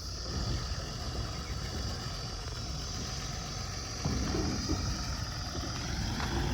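Diesel engine of a JCB 3DX backhoe loader running steadily, getting a little louder from about four seconds in.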